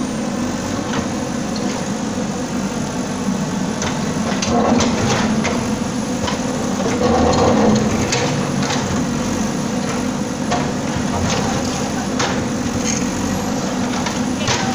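Bulldozer engine running steadily under load, with knocks and crunching clatter about every few seconds as the machine breaks up a water tank.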